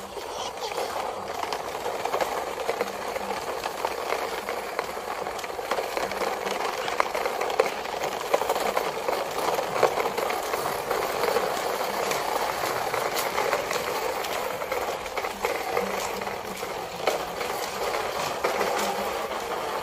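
Plastic toy dump truck and trailer rolling over gritty ground, their wheels and bodies rattling steadily, with scattered clicks.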